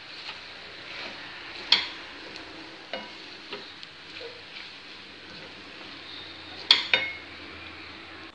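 Penne pasta sizzling in a nonstick frying pan while being stirred with a wooden spoon: a steady frying hiss with a few sharp knocks of the spoon against the pan, the loudest about two seconds in and another near the end.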